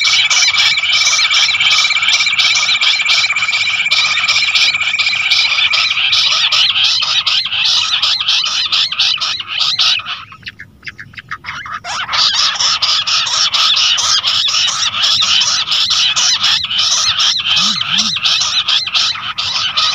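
Bush quail calling in a loud, dense chorus of rapid chirps, a quail hunting call used to lure the birds. The chorus breaks off for about two seconds halfway through, then resumes; a thin steady high tone runs under it for the first six seconds.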